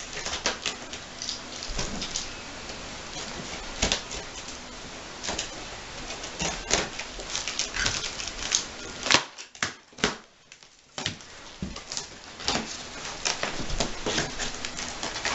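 Cardboard shipping box being cut and pulled open by hand: irregular crackles, scrapes and knocks of cardboard and packing tape, with a short lull about nine seconds in.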